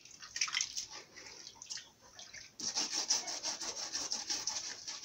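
Hands rubbing and sloshing arrowroot in a basin of water: a fast, rhythmic scraping with splashing that turns steadier and louder about two and a half seconds in.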